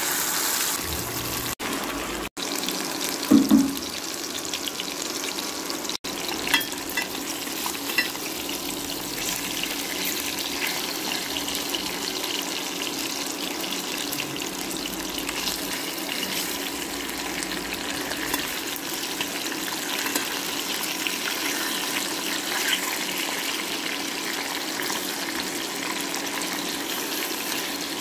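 Magur catfish steaks sizzling steadily as they shallow-fry in hot oil in a steel pan. A loud short knock comes a few seconds in, and a few light clicks follow.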